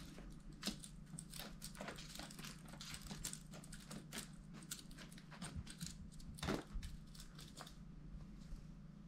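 Irregular crinkly rustling and light clicks of a cat toy being moved about on a rug, with two sharper clicks about a second in and near two-thirds of the way through, over a steady low hum.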